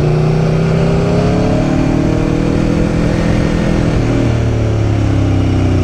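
Aprilia Tuono V4 1100 APRC's V4 engine running under way at moderate revs, its pitch rising slightly and then dropping about four seconds in as the revs fall.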